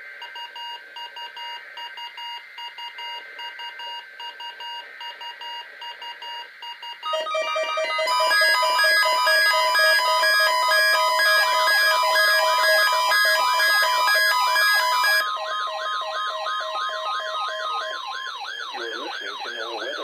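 Weather-alert radios sounding their alarms for a Required Weekly Test: rapid electronic beeping at first, then several radios beeping together louder from about seven seconds in, joined a few seconds later by a siren-like warble rising and falling that carries on to the end.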